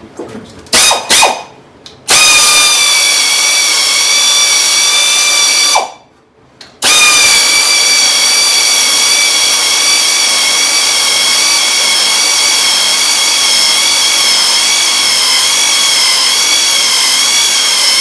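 A handheld power tool running with a high whine and hiss: two short blips about a second in, a run of about four seconds, a brief stop, then a long steady run of about eleven seconds with slight wavers in pitch.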